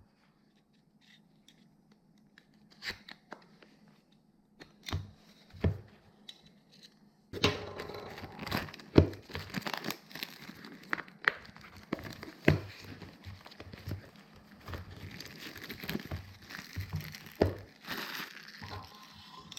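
A camera's retail box being opened by hand: a few scattered handling clicks and knocks, then from about seven seconds in a long stretch of tearing and crinkling of the packaging wrap with sharp clicks mixed in.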